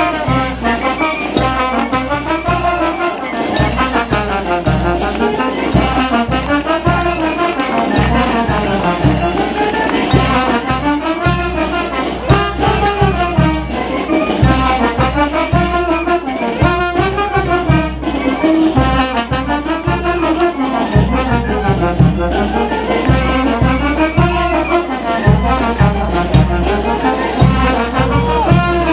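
Brass band playing a majeños dance tune: trumpets and trombones carry a melody that rises and falls in repeating phrases over a steady drum beat.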